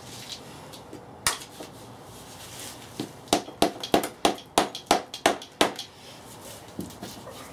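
Mallet knocking on a VW Passat gearbox casing to loosen an end plate: one knock about a second in, then a quick run of about ten knocks, three or four a second.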